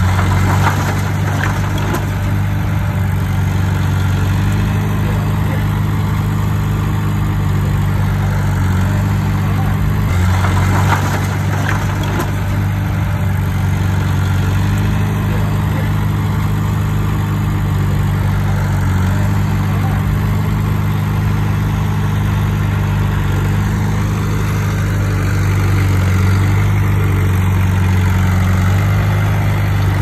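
Diesel engine of heavy earthmoving machinery running steadily, with brief extra noise about a second in and again around eleven seconds, and a little louder near the end.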